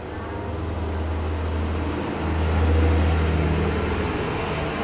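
A low rumbling noise that swells about two seconds in and then eases off.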